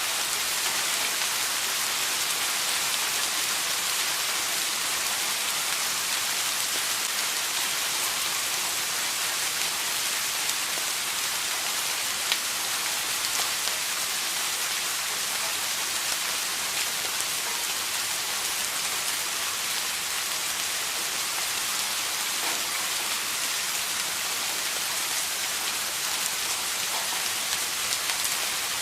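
Steady rain falling on a hard surface, an even hiss with a few separate drop ticks.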